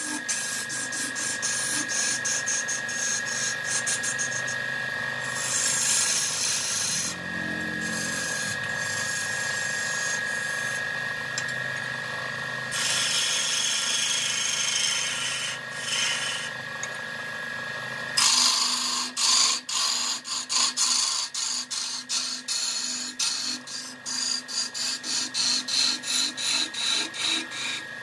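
Wood lathe running with a steady high whine while a tool scrapes the spinning wood in uneven bursts. After about 18 seconds it changes to a rapid rhythmic rasping, about two strokes a second.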